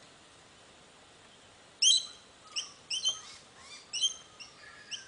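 Sulphur-crested cockatoo giving a run of short, harsh squawks, starting about two seconds in and repeating until near the end. The first squawk is the loudest.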